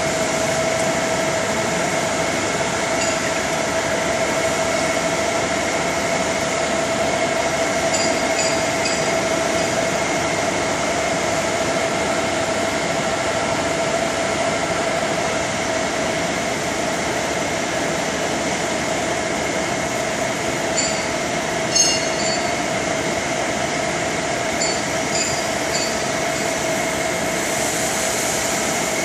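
CNC gantry cutting machine at work over steel plate: a steady hiss with a constant whine underneath. A few short metallic clicks break in, the sharpest about three quarters of the way through.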